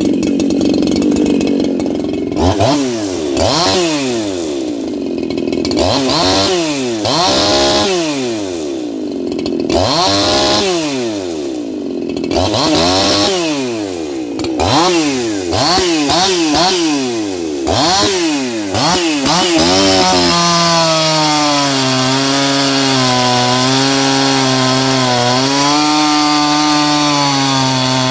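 Freshly ported Echo CS-4910 two-stroke chainsaw revved up and down a dozen or so times. About two-thirds of the way in it settles into a cut through a log, running steadily at a lower pitch under load.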